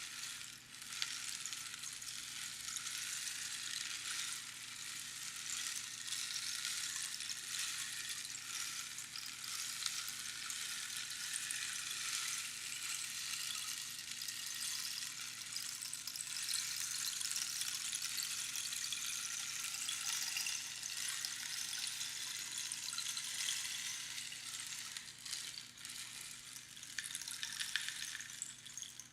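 Rainstick being played: a steady, dense pattering hiss of small pebbles cascading down past the pins inside the hollow tube. The sound dips briefly about a second in and again at the very end.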